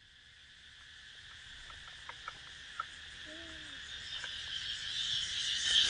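A steady, high-pitched insect chorus fades in and grows louder. A few faint clicks come about two to three seconds in.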